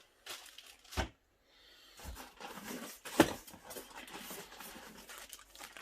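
Unpacking and handling noises as items come out of a sewing machine's box: a short knock about a second in, then rustling with a sharper knock a little past three seconds.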